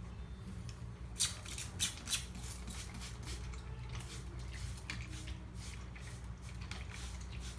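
A run of short, sharp, hissy strokes, a dozen or so at irregular intervals and some in quick pairs, as a rubber-bladed squeegee and a trigger spray bottle are handled. A steady low hum runs underneath.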